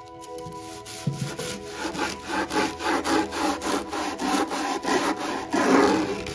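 Small red-handled stiff-bristled brush scrubbing back and forth along the wooden edge of an end table with soap and water. The quick, scratchy strokes come about four a second, starting about a second and a half in and loudest near the end.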